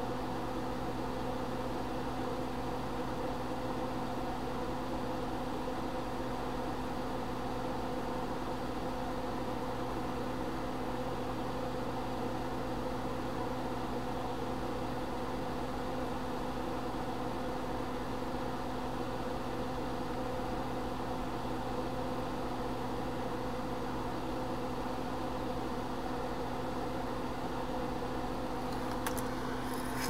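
Steady machine hum with several even tones, unchanging throughout, like a fan or small motor running on the bench.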